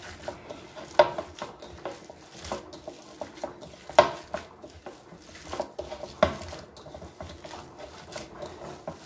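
Scattered knocks and clinks of a bowl and utensils being handled on a kitchen counter, the loudest about one, four and six seconds in.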